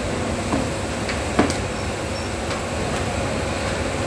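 Steady rumbling background noise with a faint constant hum, broken by a single sharp knock about a second and a half in.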